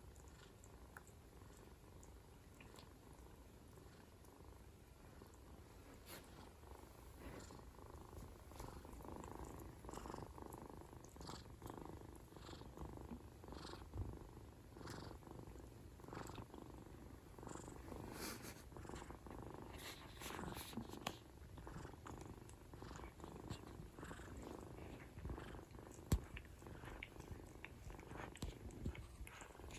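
A domestic cat purring steadily and faintly, with a few small clicks and taps scattered through, one sharper tap near the end.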